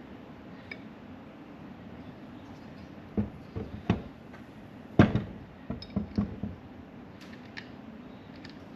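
A scattered series of sharp metal-and-hard-object knocks and clinks from tools or parts being handled, the loudest about five seconds in, over a steady low hum.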